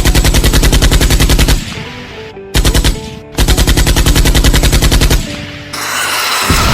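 Machine-gun fire sound effect for a fighter aircraft's guns: three rapid bursts of about fourteen shots a second, the middle one short, over background music. A rushing noise rises near the end.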